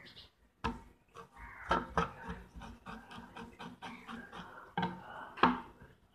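A knife scraping the skin of a whole trout to clean off the slime, a rasping scrape mixed with sharp knocks of the knife and fish against the counter, the loudest about two seconds in and near the end.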